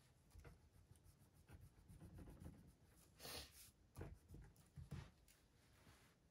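Faint pen-on-paper writing on a squared notebook page: irregular short scratchy strokes, with a few soft low knocks about four and five seconds in.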